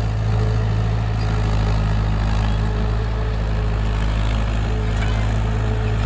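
Mahindra 575 tractor's four-cylinder diesel engine running steadily, a low even drone, as it drives a rotavator through the soil.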